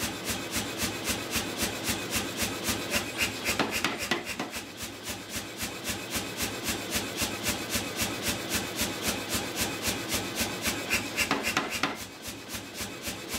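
Say-Mak power hammer striking a red-hot steel block in rapid, even blows, several a second, squaring the round bar stock into a square block. The blows come a little lighter for a moment near the end.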